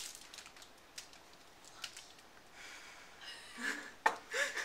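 Mostly quiet room with a few faint clicks, then near the end a sharp tap as hands come down on the table and brief muffled vocal sounds.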